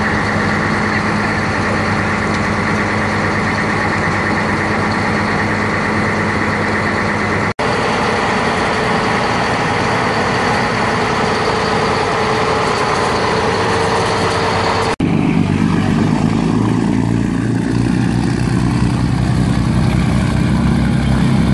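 Chao Phraya river boat's diesel engine running under way, a loud steady drone over rushing water. After cuts at about seven and fifteen seconds the tone changes, and for the last few seconds a deeper, pulsing engine throb as an orange-flag boat pulls away from the pier, its propeller churning the water.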